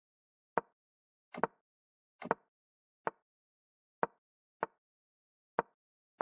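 Chess move sound effects of a game being played through: a single short click for each move, about eight in quick succession with dead silence between them. Two clicks, about one and a half and two and a half seconds in, are doubled and brighter.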